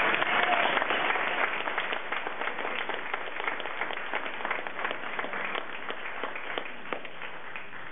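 Audience applauding: a burst of many hands clapping, loudest at first, then thinning out over several seconds and dying away near the end.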